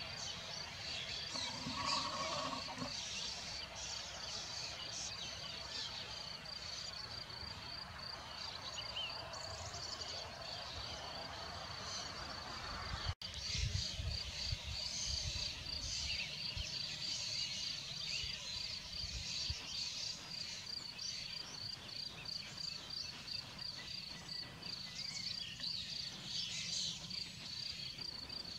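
Field insects, cricket-like, chirping in a steady, evenly pulsed high trill, with short bird calls now and then and a low rumble about halfway.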